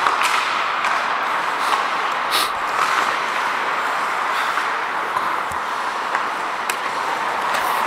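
Ice hockey play heard from a referee's helmet: a steady hiss of skates on the ice, with a handful of sharp clacks of sticks and puck, the clearest about two and a half seconds in.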